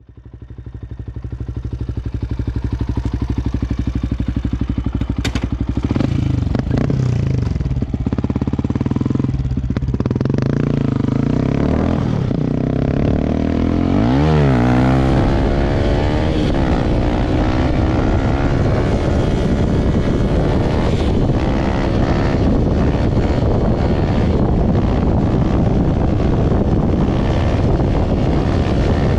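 Yamaha WR 125 X's 125 cc single-cylinder four-stroke engine running hard under acceleration, pulled up through the gears from second to fifth. The sound fades in over the first couple of seconds.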